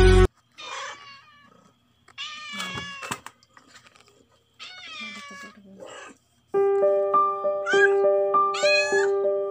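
Calico cat meowing repeatedly, separate drawn-out calls that bend up and down in pitch, restless at the start of labor. About two-thirds of the way through, a simple keyboard melody comes in under the meows.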